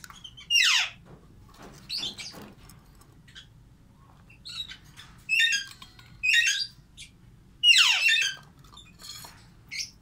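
Pet parrots calling: two loud, harsh squawks that fall steeply in pitch, about half a second in and near eight seconds, with shorter chirping calls between them.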